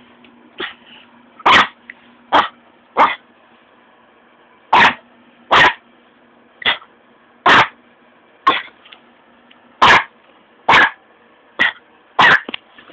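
A dog barking: about a dozen short, sharp single barks, spaced irregularly, roughly one a second.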